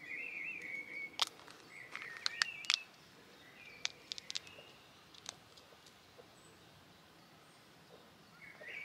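A songbird singing short warbling phrases, with sharp close clicks and snaps from a pea pod being split open by hand scattered through the first five seconds. The birdsong drops away after about three seconds and returns near the end.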